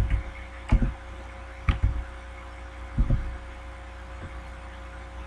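Computer keyboard keystrokes as digits and Enter are typed: four separate short clacks, each a quick double click, about a second apart in the first three seconds. A steady low electrical hum runs underneath.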